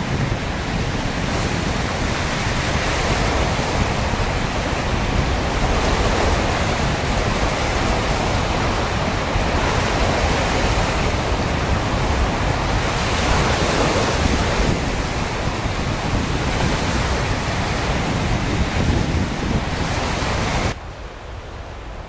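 Flood-swollen river rushing, a steady loud wash of water, with wind buffeting the microphone. The sound drops off sharply near the end.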